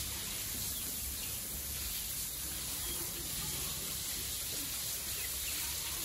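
Steady outdoor farmyard ambience: a low rumble and a high hiss, with a few faint short sounds from the chickens scratching about the pig pen.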